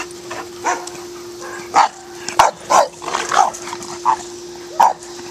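Boxer dogs barking in play, a run of about seven short barks that come thickest in the middle.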